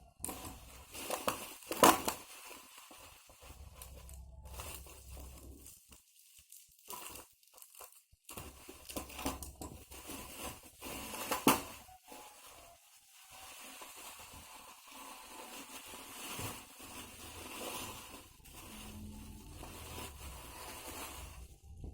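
Packaging of a graphics card being handled and opened: irregular crinkling and tearing, with two sharp louder noises, one about two seconds in and one near the middle.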